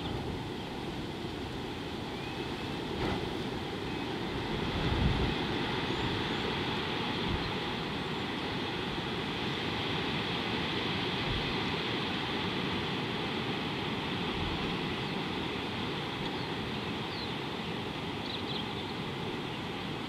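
Steady outdoor ambience at a watering hole: a continuous low rumble with an even high hiss, swelling briefly about five seconds in, and a few faint bird chirps near the start and near the end.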